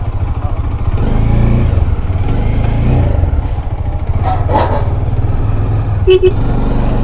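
Bajaj Dominar's single-cylinder engine running at low speed as the motorcycle creeps along at walking pace. A short horn beep sounds about six seconds in.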